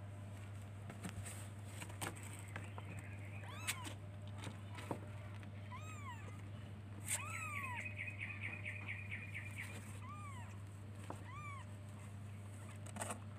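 Newborn kitten mewing: about five short, high, rising-and-falling mews, the loudest about seven seconds in, calling for its mother. A rapid high trill follows that loudest mew for about two seconds, over a steady low hum.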